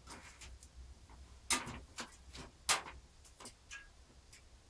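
Metal I/O shield being pressed into a PC case's rear cutout: a series of sharp clicks, the two loudest a little over a second apart, as its edges snap into place.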